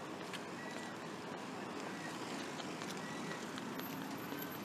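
Steady city traffic noise from the surrounding avenues, with short, faint high chirps repeating about once a second.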